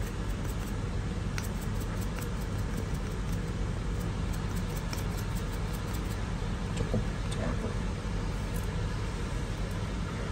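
Steady low background hum, with faint scattered light clicks and taps as salt is shaken from a salt container into a hand and sprinkled over flour in a steel bowl.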